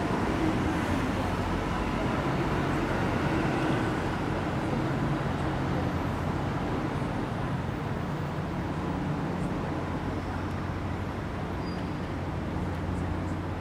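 Steady rumble of road traffic, with a low hum running under it.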